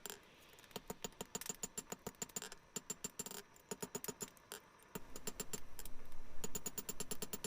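Hand hammer striking hot steel on an anvil in quick, light blows, several a second, each with a short metallic ring, as the bosses of forged plier blanks are set down. A low steady hum joins about five seconds in.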